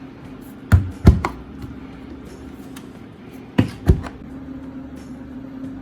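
Compressor of a portable fridge-freezer running with a steady low hum, broken by two quick pairs of sharp knocks, about a second in and again near four seconds.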